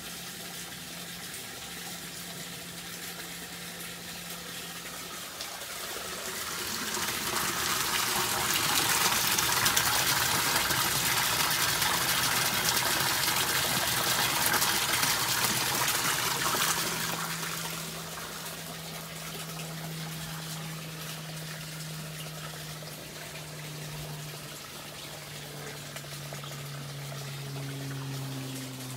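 Water splashing and trickling into the fish tank of an IBC-tote aquaponics system as the grow bed drains into it. It grows much louder about six seconds in and eases back after about seventeen seconds.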